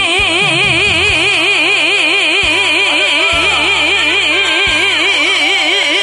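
A woman's trot vocal holding the song's long closing note with a wide, even vibrato over the band's accompaniment.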